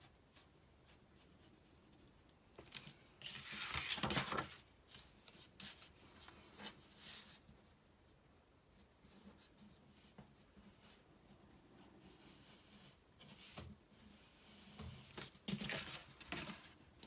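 Pencil scratching across paper in a few strokes, loudest a few seconds in. Paper rustles as the sheet is lifted and handled near the end.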